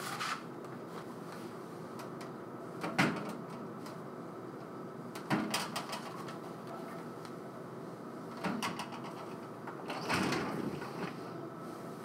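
Knocks and clatters of vinyl LPs being set into a dishwasher's wire bottom rack, a few separate strokes, then a longer rattle about ten seconds in as the loaded rack is rolled back into the machine.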